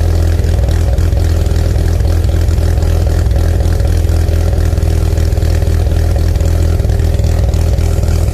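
Mazda RX-7 SA22C's 13B turbo twin-rotor rotary engine idling steadily through an exhaust with the catalytic converter removed, loud and low with no revs.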